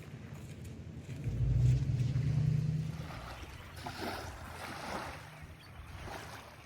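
A motor's low hum swells loudly for about two seconds and then fades, with wind and outdoor noise around it.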